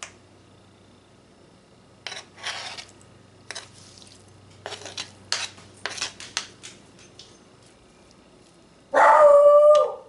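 Scattered light clicks and knocks of kitchen utensils, then about nine seconds in a dog's loud howl held at a steady pitch for about a second.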